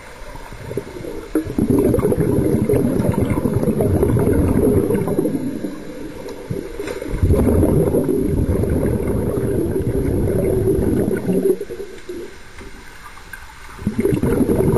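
Bubbles from scuba regulator exhausts heard underwater, a gurgling rush in long surges of several seconds with quieter gaps between them.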